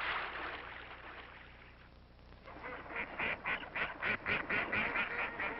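A rushing noise fades away over the first two seconds. Then, about two and a half seconds in, waterfowl start calling in a quick, even run of short calls, about five a second.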